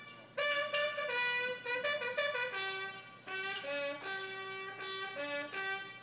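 A bugle call played on a single brass horn: a run of short, quick notes leaping between the few open notes of the bugle, with two short breaths between phrases.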